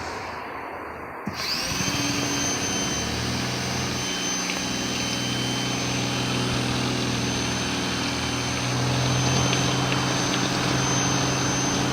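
GreenWorks 1800 PSI electric pressure washer's motor and pump starting about a second in and running steadily with a high whine, under the hiss of water spraying from the rotating surface cleaner.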